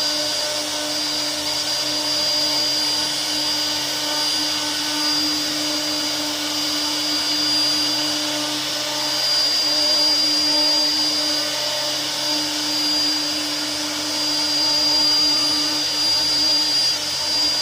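CNC router spindle running steadily, a constant machine noise with a high whine over it.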